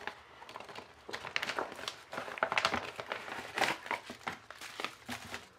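Clear plastic zip-lock bag crinkling as hands open and handle it, a run of irregular crackles.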